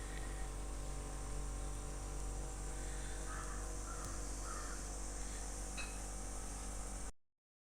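Quiet outdoor ambience: a steady low hum and hiss, with a few faint bird calls about three to four seconds in. It cuts off abruptly near the end.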